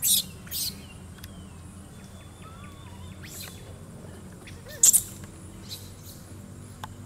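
A handful of short, sharp, high-pitched animal chirps, two right at the start and the loudest pair about five seconds in, with a few faint thin whistles between them over a steady low hum.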